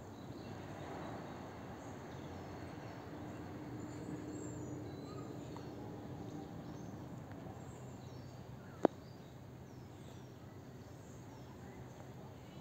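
Outdoor park ambience: steady low background noise with faint, scattered bird chirps, and one sharp click about nine seconds in.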